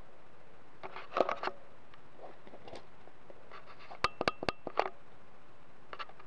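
Sharp plastic clicks and taps from handling a Lego Technic quad bike model: a few about a second in, then a quick run of about six around four seconds in.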